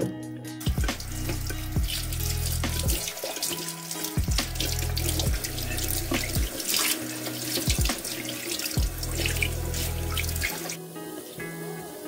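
Eggs frying in hot oil under a glass lid: a dense, crackling sizzle that cuts off abruptly near the end.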